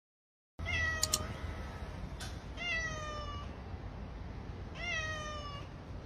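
Domestic cat meowing three times, about two seconds apart, each meow sliding down in pitch. A couple of sharp clicks come near the first meow.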